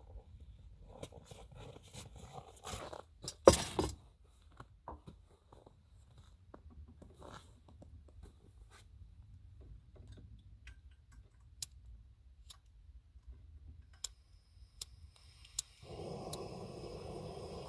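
Snow being gathered and handled into a pot for melting: scattered crunches, scrapes and clicks, with one sharp knock about three and a half seconds in. Near the end a steady hiss starts, a camp stove burner lit under the snow.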